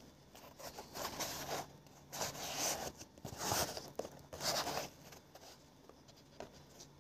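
Rustling and rubbing as a new football boot is handled and turned over in the hands, in four short bursts about a second apart.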